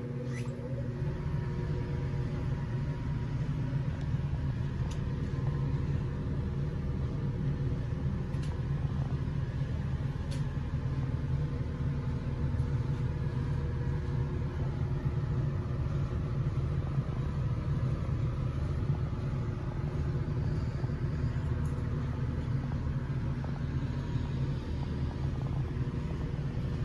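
Steady low rumble of indoor background noise, with a few faint clicks.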